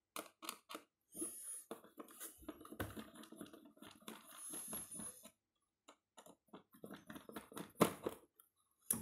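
A screwdriver working a twisted iron wire loose through a cardboard box: scratching and rustling against the cardboard with brief high metallic squeaks, amid scattered small clicks and taps, and one louder knock near the end.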